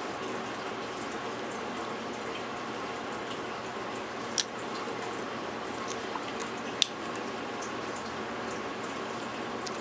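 Lock picking in a Master Lock Magnum pin-tumbler padlock: a few small, sharp metallic clicks from the pick and pins, two of them louder, about four and a half and seven seconds in, over a steady background hiss.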